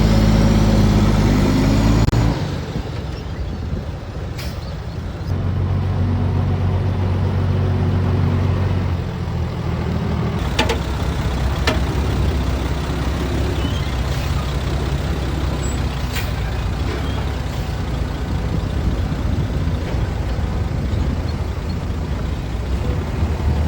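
Heavy diesel engines of a Volvo EC480DL excavator and dump trucks working, the engine note surging under load in the opening seconds and again midway, then settling to a steady run. A few sharp knocks sound partway through.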